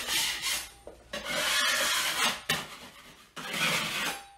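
A steel drywall taping knife scraping across a ceiling joint of joint compound and FibaFuse tape, in three rasping strokes with the middle one longest. This is the light scrape that knocks down high spots before the next coat of mud.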